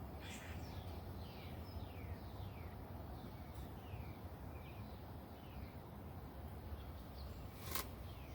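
Birds calling over and over with short, high calls that fall in pitch, about one or two a second, over a steady outdoor background. A single sharp click comes near the end.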